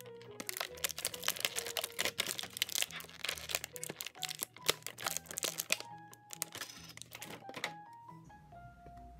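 Clear plastic packaging crinkling as small toy figurines are handled and unwrapped, over light background music; the crinkling stops about eight seconds in.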